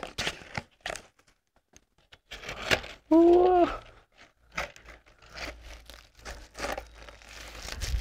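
Cardboard shipping box being pried open and its inner tray slid out: scattered scrapes, rustles and crinkles of cardboard and plastic wrapping. A short hummed vocal sound about three seconds in.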